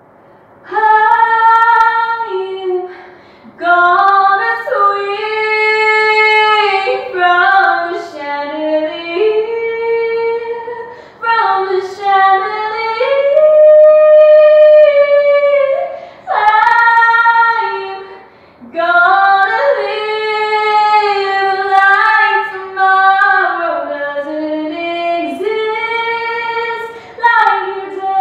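A young woman singing unaccompanied in long held notes that slide up and down, in several phrases with short breaks for breath between them.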